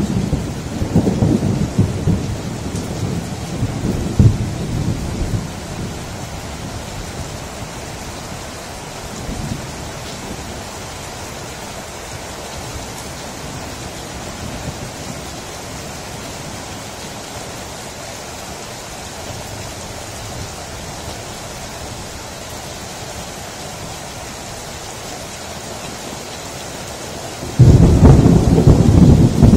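Night thunderstorm: rain falls steadily throughout. Thunder rumbles and fades away over the first few seconds, and a sudden loud thunderclap breaks in near the end and keeps rumbling.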